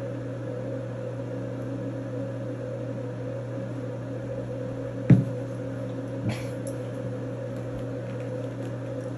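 Steady mechanical hum in a small room, with the quiet scuffle of two puppies tussling on a towel. A single sharp knock comes about five seconds in and a brief high squeak a second later.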